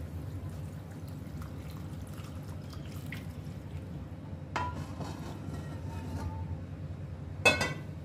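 Cooking oil pouring from a metal wok into a pot of cut raw mango pickle. Metal scrapes on metal about halfway through, and a loud ringing metal clank comes near the end.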